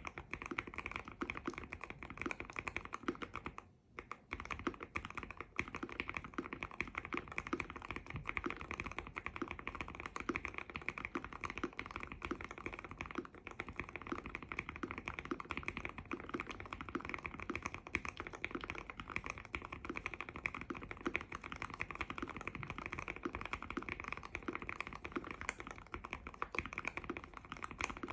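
Continuous fast typing on a Keychron Q1 mechanical keyboard with hand-lubed Aqua King V3 linear switches on a brass plate, tape-modded and foam-dampened, giving a dense run of muted, deep keystroke clacks. There is a brief pause about four seconds in.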